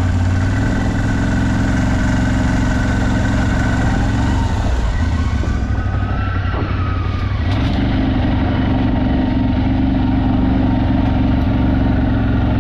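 CF Moto 1000's V-twin engine running steadily as the machine is ridden, its note dropping off briefly in the middle and then picking back up.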